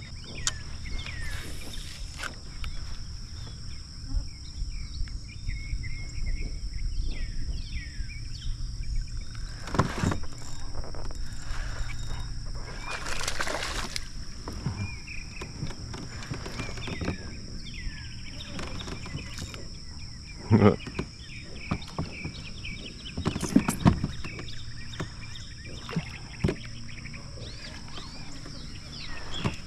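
Pond-side ambience heard from a kayak: a steady high insect drone and birds chirping, with a few sharp knocks on the boat. About halfway through a longer burst of water splashing, as a hooked bass thrashes at the surface beside the kayak.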